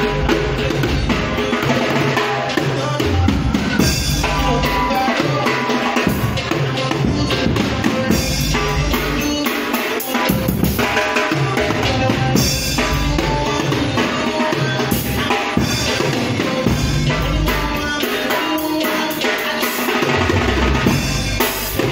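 A drum kit being played, with bass drum and snare, over other music.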